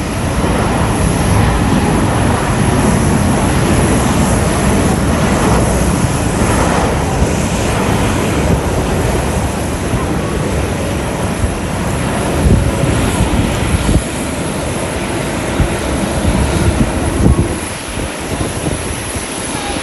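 Jet airliner's engines: a loud, steady rush of engine noise that eases slightly near the end.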